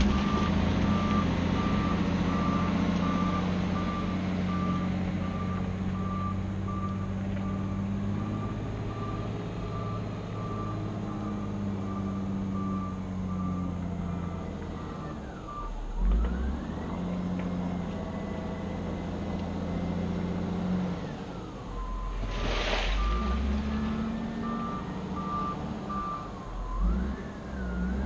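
Cat 966G wheel loader's diesel engine running while its reversing alarm beeps steadily through the first half, then an engine whine that dips and rises as the revs change. A short rush of noise comes about three-quarters through, and the beeping returns for a few seconds near the end.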